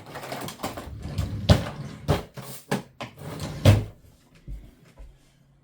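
Things being rummaged through and handled: a run of clicks and knocks with rustling for about four seconds, then only faint handling noise.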